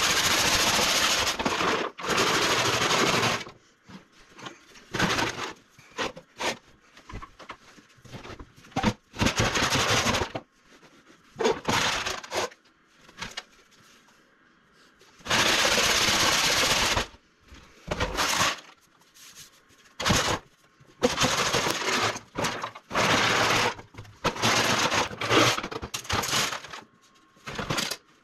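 Crushed driveway gravel rattling and scraping inside a generator gas tank shaken hard by hand, scouring the inside of the tank. It comes in repeated shaking bouts of one to two seconds with short pauses between them.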